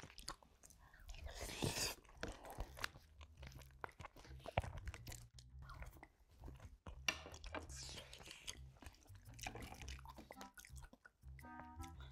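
Close-miked eating: chewing and biting on braised spicy chicken stew and rice, with a crunch now and then and many short clicks of chopsticks on the dishes.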